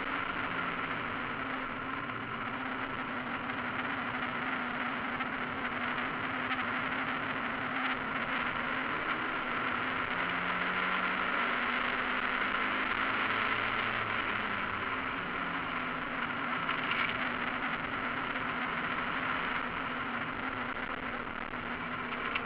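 Mazda MX-5 race car running at racing speed, heard from inside the cockpit: the four-cylinder engine under load blended with a steady wash of wind and road noise. The engine note shifts slightly partway through.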